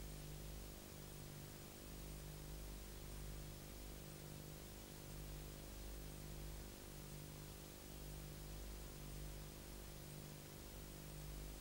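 Low hum and hiss with no other sound: the background noise of a silent film's empty soundtrack. The lowest part of the hum pulses on and off every second or so.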